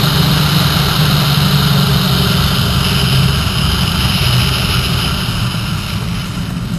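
Motorcycle engine running steadily under way, with a steady rush of wind over the microphone; the engine eases off a little near the end.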